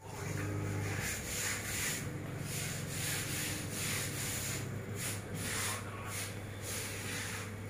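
Repeated rubbing strokes on a surface, somewhat irregular at roughly two a second, over a steady low hum.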